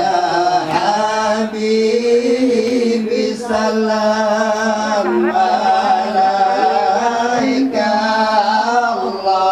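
Chant-like singing led by a male voice, with long held, wavering notes and no break.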